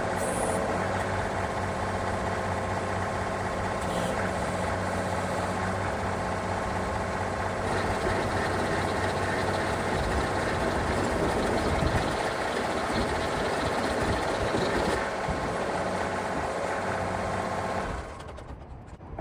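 John Deere compact tractor engine running under throttle, driving a John Deere 665 rototiller whose tines spin at its shallowest setting, barely scratching the surface. The steady machine noise drops away sharply about a second before the end as the drive is shut down.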